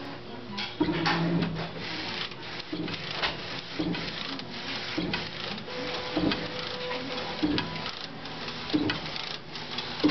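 Fast T-Jet 3 direct-to-garment inkjet printer printing a T-shirt: its printhead carriage runs back and forth with a pass repeating roughly once a second, over a steady mechanical hiss.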